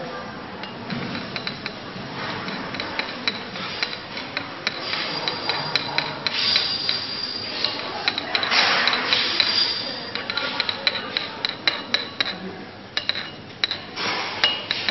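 Glass stirring rod scraping and clicking against a porcelain evaporating dish while melted beeswax and liquid paraffin are stirred together. Irregular taps and ticks run throughout, with a longer, louder scraping spell just past the middle.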